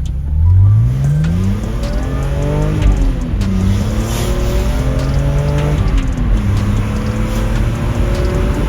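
BMW Z4 M's 3.2-litre S54 straight-six, decatted with an X-pipe, accelerating hard: the engine note climbs, drops back about three seconds in and again about six seconds in as it shifts up, then climbs again.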